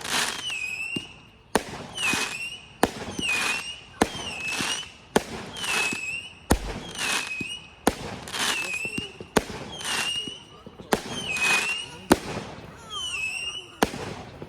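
Fireworks going off in a steady series, about one shot every second or so, each a sharp crack followed by a hissing burst with a short whistle.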